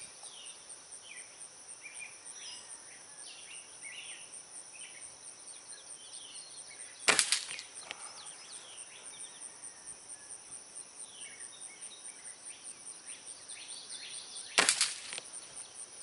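Two shots from a spring-piston air rifle firing pellets, about seven and a half seconds apart, each a sharp crack with a brief ring-off.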